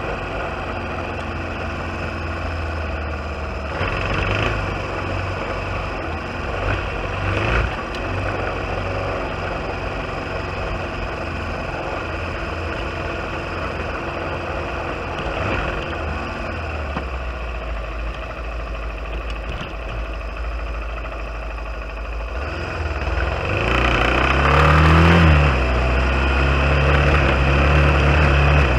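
Trail motorcycle engine running steadily at low speed on a dirt track, with a few short knocks. About 23 seconds in the engine revs up, rising in pitch and getting louder, and stays louder afterwards.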